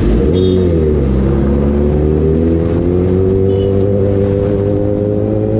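Kawasaki ZX10R inline-four with an aftermarket Arrow exhaust under way. Its revs dip briefly just after the start, then hold fairly steady and climb slowly.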